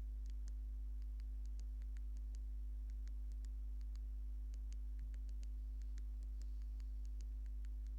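Steady low hum with faint, scattered ticks.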